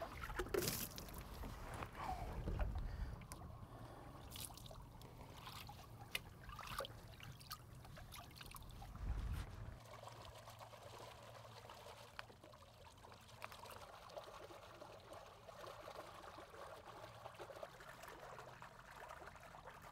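Faint water pouring and splashing from a transfer hose into a net acclimation cage as bass fingerlings are flushed in, with a few low bumps in the first half.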